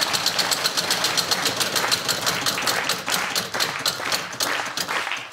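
Game-show prize wheel spinning, its pointer clicking rapidly against the metal pegs on the rim. The clicks slow steadily as the wheel coasts down.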